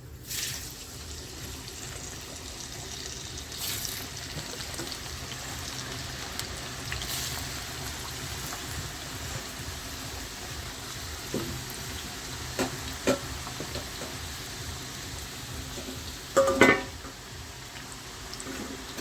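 Parboiled, towel-dried potato slices sizzling in hot oil in a kadai, starting with a surge as they go into the oil and then frying with a steady hiss. A few knocks of a utensil against the pan, loudest about three-quarters of the way through.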